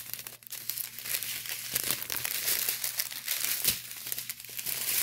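Small clear plastic bags of diamond-painting drills crinkling as they are handled and shuffled, a continuous fine plastic crackle.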